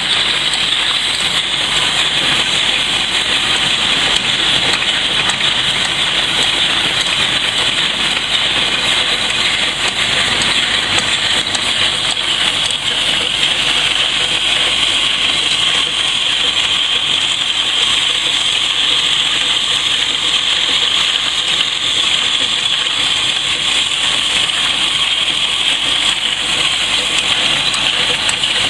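Empty cigarette tube making machine running at production speed: a loud, steady machine noise with a strong high hiss and no distinct beat.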